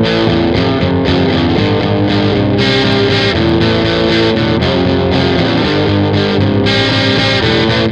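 Distorted electric guitar playing a hard-rock rhythm part: held chords ringing out, with brighter strummed chords about two and a half seconds in and again near the end.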